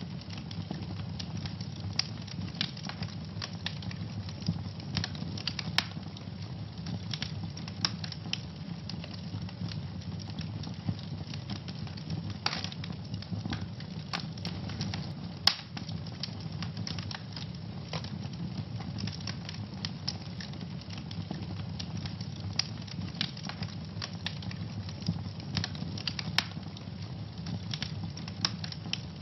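Wood fire burning in a fireplace: a steady low rumble of flames with frequent irregular crackles and pops, a few sharper snaps standing out.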